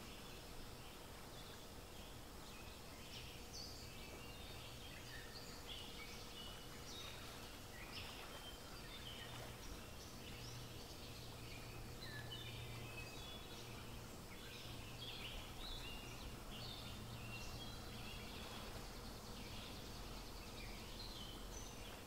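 Faint chorus of birds: many short, high chirps and calls scattered throughout, over a steady background hiss and low hum.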